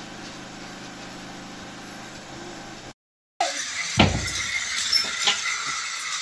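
Battery-powered toy train running on a plastic track. It gives a steady low motor hum, then, after a short break, a louder whirring rattle with one heavy thump about four seconds in and a few sharp clicks.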